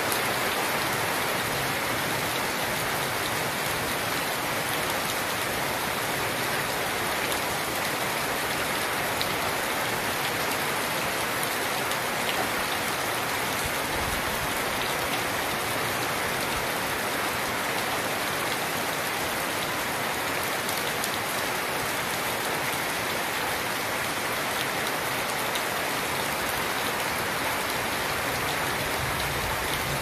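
Steady rain falling on dense garden foliage, an even hiss that holds level throughout, with faint scattered drop ticks.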